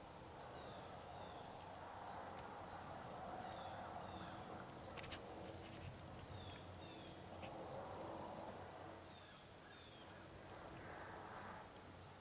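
Faint rustling in dry fallen leaves that swells and fades, under a high, thin chirp repeating about twice a second.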